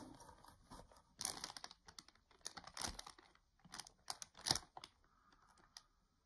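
Loose clear plastic packaging crinkling in several short, faint bursts as it is handled along with a cardboard figure box, going quiet for the last second or so.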